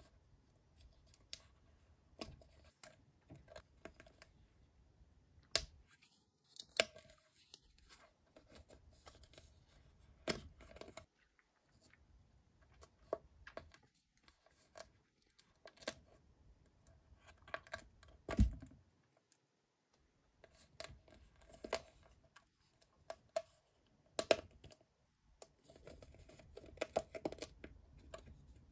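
Thin clear plastic candy tray crinkling and clicking in short, irregular crackles as fingers pry gummy pieces out of it and peel a long gummy strip free, with a few sharper snaps of the plastic.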